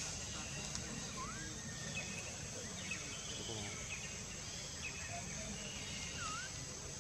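Outdoor nature ambience: a steady high insect drone with scattered short bird chirps, and two whistled bird swoops, one rising about a second in and one dipping and rising again near the end.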